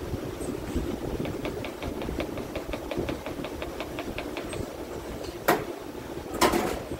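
Rapid light clinking, about seven a second, of a spoon stirring watermelon juice in a glass pitcher. It is followed by a sharp knock and a short scrubbing rush near the end.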